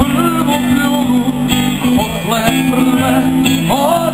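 Live rock band playing: guitars and bass under a singer's voice.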